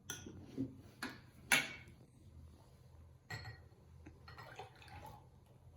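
A bowl and container clinking and knocking as yeast mixed with warm water is poured into hydrogen peroxide. A few sharp clinks stand out, the loudest about a second and a half in, followed by softer scraping.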